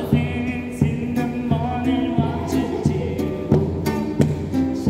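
A man singing while strumming an acoustic guitar, with regular chord strokes under the melody.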